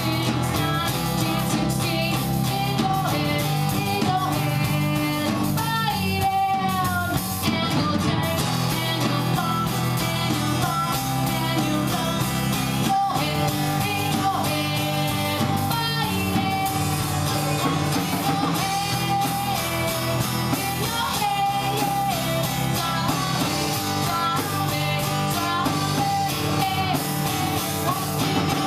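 Live acoustic rock performance: a woman singing a melody while strumming an acoustic guitar, backed by a drummer on a drum kit with cymbals.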